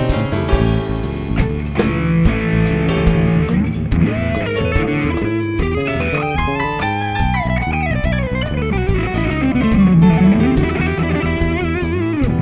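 Full band playing through a PA system during a sound check: electric guitar lines over bass, with frequent sharp percussion hits. In the second half, one long note slides down and back up in pitch.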